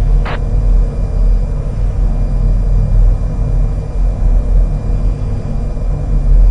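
Steady low rumble with a low hum, with one brief click or crackle about a third of a second in.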